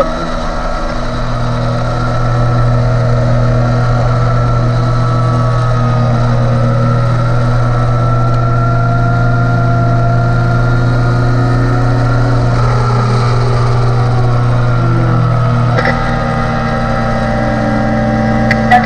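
Yamaha YZF-R3 racing motorcycle's parallel-twin engine running at high, nearly steady revs under full throttle. The engine note changes about three-quarters of the way through.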